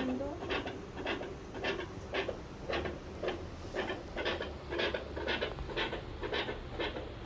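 A dog's chest heard through a stethoscope: a fast, even rhythm of short rasping strokes, about three to four a second.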